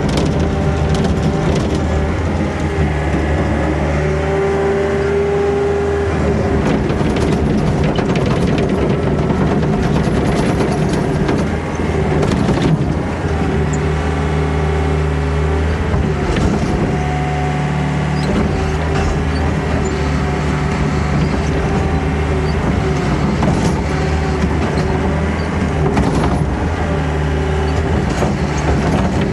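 Diesel engine of a heavy earthmoving machine working under load while digging around a tree. The engine note rises and falls several times, with a brief whine a few seconds in and scattered knocks.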